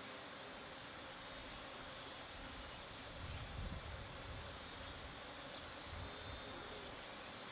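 Garden ambience beside a flower bed: a steady high hiss with bees buzzing and faint bird chirps. A low rumble swells briefly about three seconds in and again near six seconds.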